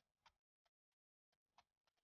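Near silence, broken by faint soft ticks several times a second: hoofsteps of a Przewalski's horse walking on dry, stony ground.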